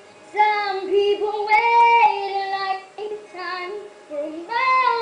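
A young girl singing solo, a pop vocal line of long held notes with short slides between them, heard as played back through a computer's speakers.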